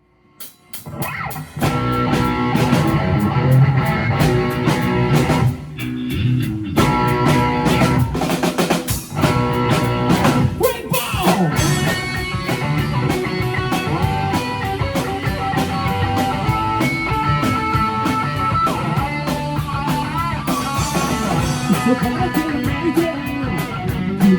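Rock band playing live: electric guitar, bass and drum kit in an instrumental intro, starting out of silence within the first second, with a couple of short breaks before settling into a steady groove.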